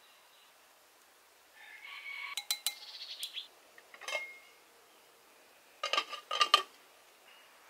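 A glass pot lid clinks and rattles as it is set onto a black cooking pot: a few sharp, ringing clinks about six seconds in, the loudest sounds here. Lighter clicks of utensils come earlier.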